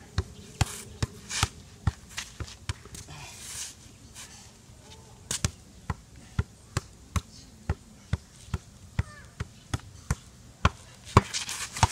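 A ball juggled with the left foot from a seated position: steady, regular taps of the ball off the shoe, about two to three a second, with a few louder knocks near the end.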